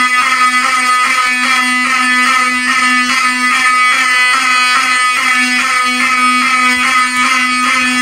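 Fire-Lite STH horn strobe (a rebadged Wheelock 7002 electromechanical horn) sounding a loud fire alarm, with a harsh pulsing tone that repeats several times a second.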